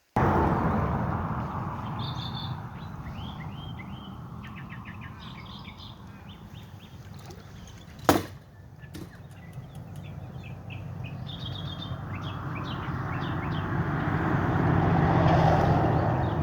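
Small birds chirping over and over, against a low outdoor rumble that fades after the start and swells again near the end. One sharp click about halfway through.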